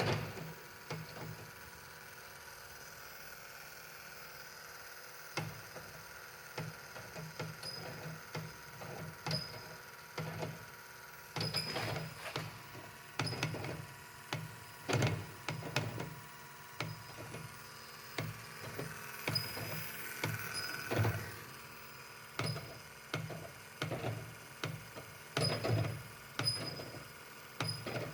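Irregular knocks, clicks and clunks, sparse at first and coming thick and fast from about the middle on, like parts and tools being handled during work on a car.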